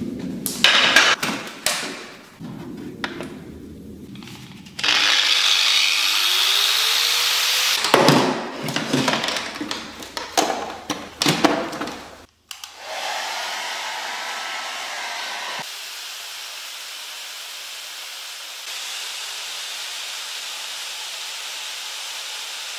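Corded power tools and a hair dryer running as a heavy-load test. About five seconds in a motor spins up into a loud steady rush, then tool handling brings clatter and knocks. For the last several seconds the hair dryer blows steadily.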